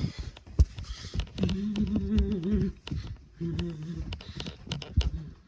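Footsteps and knocks of a handheld phone being carried through a house. The loudest is a thump about half a second in. A low wordless voice holds a wavering note for about a second in the middle, then sounds twice more, briefly.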